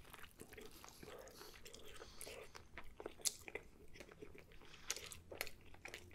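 A person biting and chewing a breakfast burger on a toasted everything bagel: faint crunching and mouth sounds, with a few sharper crunches about three seconds in and again near the end.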